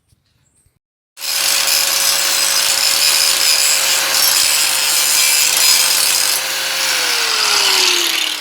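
An electric power tool starts about a second in and runs at a steady high speed with a loud hiss and a constant whine. Near the end it is switched off and the whine falls steadily in pitch as the motor spins down.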